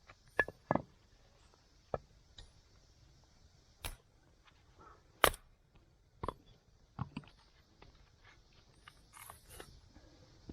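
Irregular knocks and clicks, about a dozen spread over ten seconds, the sharpest and loudest about five seconds in, over a faint steady hiss.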